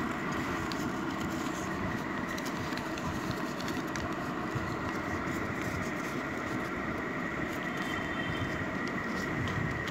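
Steady background rumble with a faint high whine, and faint scattered crinkles and taps of origami paper being folded by hand.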